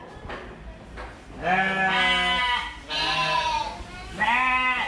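Sheep bleating: three loud bleats in quick succession, starting about a second and a half in.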